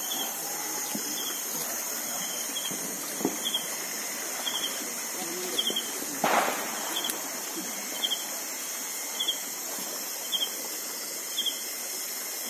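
Night insects: one gives a short pulsed chirp about once a second over a steady high hiss from the surrounding insect chorus. Footsteps and brushing through vegetation run underneath, with a louder swish about six seconds in.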